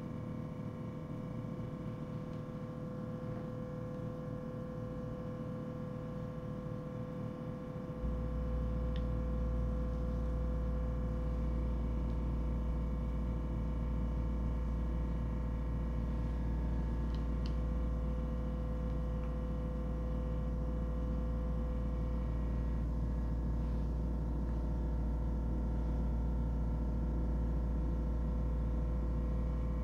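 A steady mechanical hum with one strong fixed tone, joined about eight seconds in by a deep, even rumble that holds from then on. There are a couple of faint clicks.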